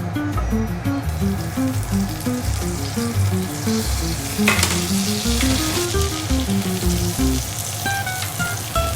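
Food frying in a pan, sizzling steadily, with a sudden louder sizzle about four and a half seconds in, over background music with a bass line and a melody.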